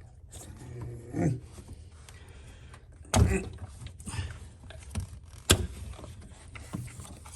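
Spark plug wires being popped off the distributor cap: rustling with two sharp clicks, one about three seconds in and one about five and a half seconds in, plus a few lighter ticks.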